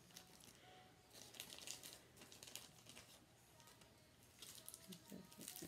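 Faint crinkling of plastic packaging as packs of nail-art stickers are handled, in scattered bursts.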